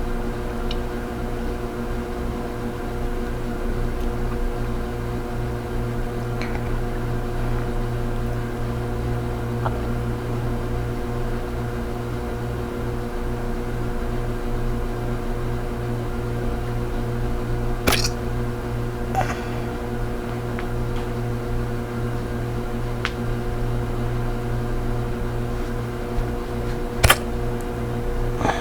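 A woman hiccupping twice, each a sharp, short 'hic', about two-thirds of the way in and again near the end, the second one louder. The hiccups are natural, not induced, and sound over a steady mechanical hum.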